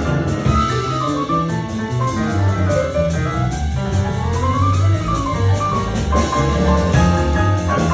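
Live jazz band playing, over a low bass line and a steady ticking cymbal beat. A melody line slides smoothly up in pitch and back down about midway.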